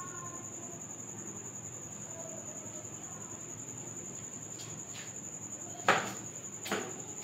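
A cricket trills steadily at a high pitch. Near the end come two short, rough swishes about a second apart, the first louder, from a duster wiping the whiteboard.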